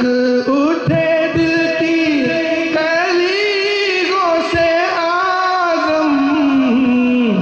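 A man singing an Urdu devotional nasheed, drawing out one long, ornamented sung line. The voice steps up in pitch about half a second in, wavers and swells as it holds, and falls away at the end.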